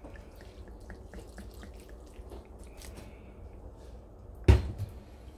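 Soy sauce pouring and dripping from a plastic bottle onto diced onions and raw pork, a faint patter of small drips. About four and a half seconds in, one sharp knock.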